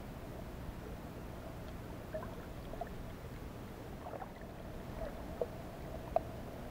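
Muffled underwater ambience heard through a submerged action camera's housing: a steady low rumble with a faint hum, dotted with small clicks and pops, the sharpest two about five and a half and six seconds in.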